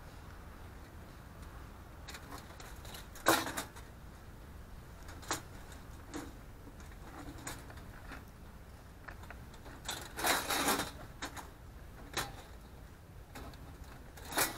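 Thin sheet-metal panels of a small folding portable charcoal barbecue clicking and clattering as they are unfolded and fitted together. There is a sharp clack about three seconds in, a few lighter clicks, and a longer rattle around ten seconds in, over a low steady background rumble.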